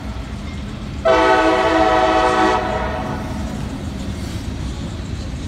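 CSX freight locomotive's air horn sounding one long blast of several tones at once, a warning at a road grade crossing. It starts about a second in and lasts about a second and a half, over a steady low rumble.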